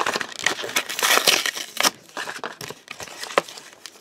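Cardboard backing being torn and a plastic blister pack crinkled and crunched by hand, in irregular crackles that are busier in the first half.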